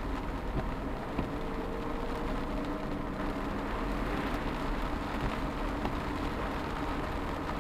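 Car driving on a wet road in rain, heard from inside the cabin: steady engine and tyre noise with rain on the windscreen.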